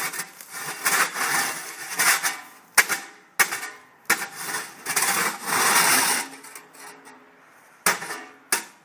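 A run of rough scraping strokes, each about a second long, broken by a few sharp knocks, ending with two knocks near the end.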